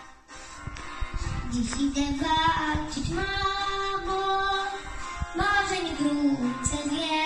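A boy singing a slow song over a musical backing track, holding long notes. The singing comes in about a second and a half in, after a brief pause.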